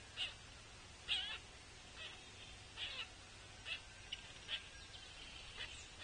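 Juvenile pileated woodpecker giving hoarse begging calls to be fed by its parent, short harsh calls repeated about once a second.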